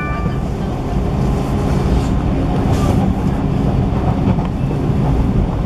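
Steady low rumble inside a 185 series electric multiple unit motor car running on the line: wheels on rail and running gear under the floor.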